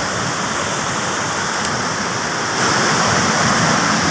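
Mae Ya Waterfall's water rushing steadily over the rocks, a dense continuous noise that steps up a little louder about two and a half seconds in.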